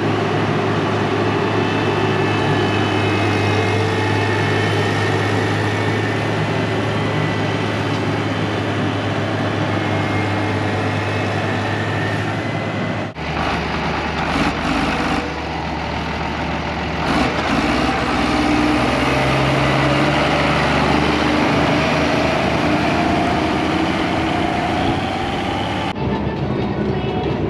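Diesel engine of harvest farm machinery running steadily. The sound changes abruptly twice, about halfway through and near the end.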